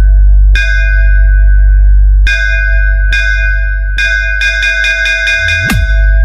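Electronic DJ bass-test track: a very loud, deep sustained sub-bass under repeated metallic bell-like hits that ring on. The hits quicken into a fast roll about four seconds in, and a falling pitch sweep drops into the bass near the end.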